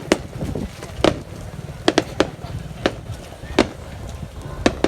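Fireworks going off: about eight sharp bangs at irregular intervals, some in quick pairs, over a low background rumble, with faint voices of onlookers.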